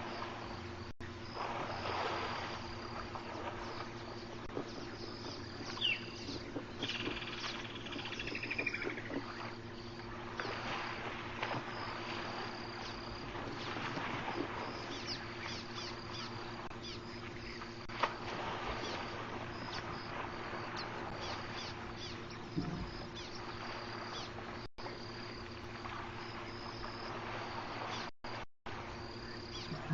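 Insects chirping steadily in the bush, over a low steady hum, with a short descending trill about seven seconds in.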